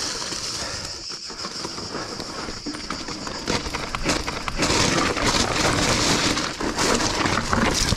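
Mountain bike descending a rocky trail: tyres rolling and skidding over loose stone, with the chain and frame rattling on the bumps. A steady high buzz carries through the first half, and the rattle and rush of rock grow louder from about halfway.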